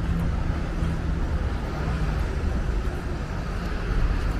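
Steady low rumble and hum of a vehicle in motion, with no clear changes.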